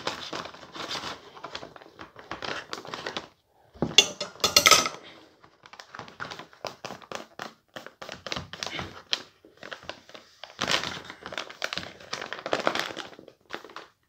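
Mountain House freeze-dried meal pouch crinkling and crackling as it is handled and the rehydrating rice is stirred and mixed inside it. The crackles are irregular, with a loud burst about four seconds in and another busy stretch near the end as the pouch is squeezed and shaken.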